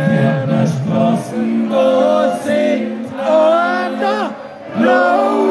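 Live band music through a PA in a large tent, with a singer holding and bending notes over a steady bass line. The music dips briefly about four and a half seconds in, then comes back.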